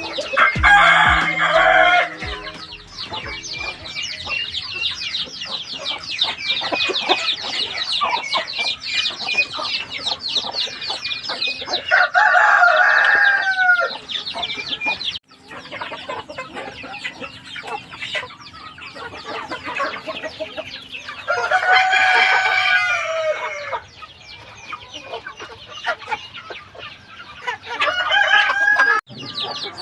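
A flock of heritage-breed chickens clucking and chattering without pause, while roosters crow four times, each crow lasting about two seconds.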